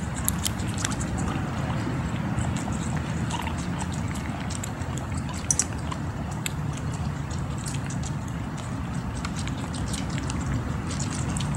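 Guinea pigs chewing melon rinds: irregular, wet, crunchy clicks of gnawing and biting, over a steady low background rumble.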